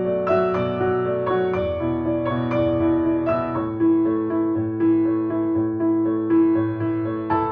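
Calm, slow instrumental relaxation music on piano, single notes struck about every half second over held low notes.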